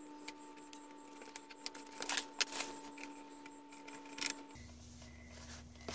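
Plastic shrink wrap crinkling and crackling as it is slit and peeled off a DVD case, in scattered short bursts, the busiest about two seconds in and again just after four seconds.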